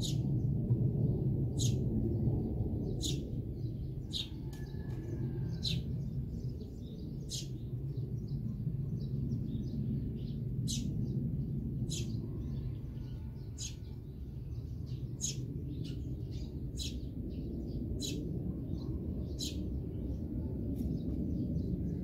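Eurasian tree sparrows chirping: short, sharp chirps about once a second, over a steady low rumble.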